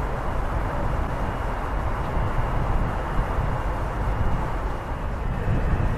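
Railway station ambience: a steady low rumble of trains, with a faint thin high whine above it.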